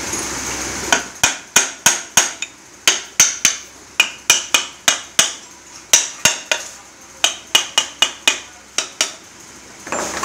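Hammer striking metal: over twenty sharp, briefly ringing taps in uneven runs of about three a second, starting about a second in and stopping shortly before the end. It fits tapping a part of the scooter engine's crankcase or crankshaft assembly into its seat.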